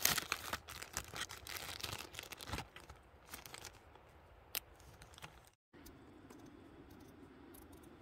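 A clear plastic zip-top bag crinkling and rustling as a ball of dough is handled in it, with sharp crackles for the first three seconds and then dying away. After a brief break, only faint sound is left, with a paring knife peeling a potato.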